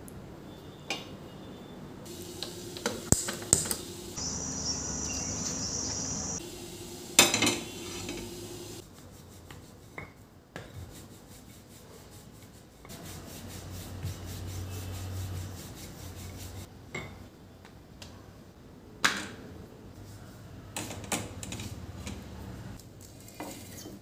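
Kitchen sounds of cooking: several sharp clanks and clinks of utensils against steel pans, the loudest about seven seconds in, with stretches of stirring, scraping and the rolling of a wooden rolling pin over dough on a stone board.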